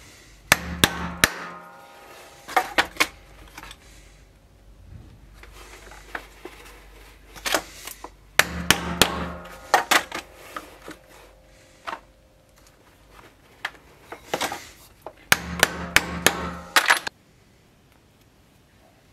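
Hammer blows on a multi-prong stitching chisel (pricking iron), punching stitch holes through leather, in quick groups of a few sharp strikes with pauses between.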